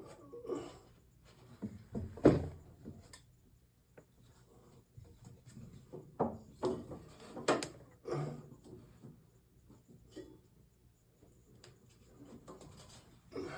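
Handling noise from a PEX crimping tool being fitted around a crimp ring overhead: scattered knocks and clunks with rubbing between them. The sharpest knock comes about two seconds in, and a cluster of knocks comes about halfway through.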